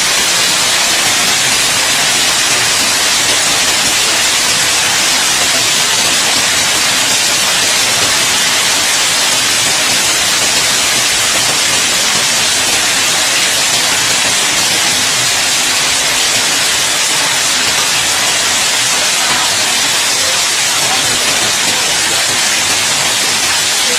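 Heavy hail falling: a loud, steady hiss of hailstones pelting the ground.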